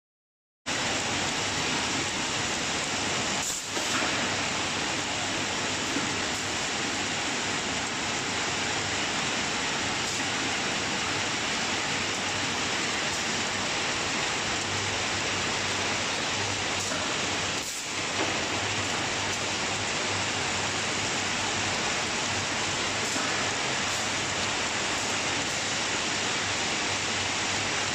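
Conveyor line for tins running: a continuous, even rushing noise of belts and motors, with two brief dips, one a few seconds in and another about two-thirds of the way through.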